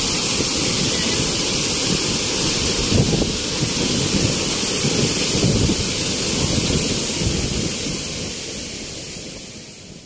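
Steady rushing roar of a large waterfall pouring into its plunge pool, with wind from the falls' spray buffeting the microphone in low gusts. The sound fades out near the end.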